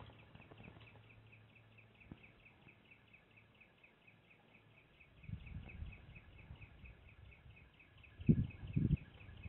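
Juvenile fox squirrel clambering on a wire basket close to the microphone: low bumps and scuffs from about halfway, with two sharp knocks near the end. A high, rapid trill of chirps, several a second, runs steadily underneath.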